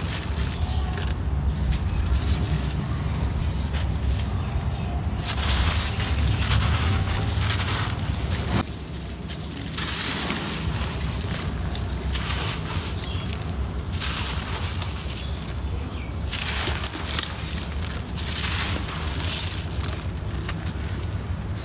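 Dry, gritty sand-and-grit blocks crushed and crumbled in gloved hands: crunching and grains pouring and hissing down, in bursts with short pauses, over a low rumble.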